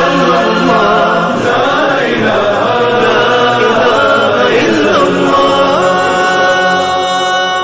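Islamic devotional hamd being sung in a chanting style: a voice draws out a gliding melodic line over a steady held drone.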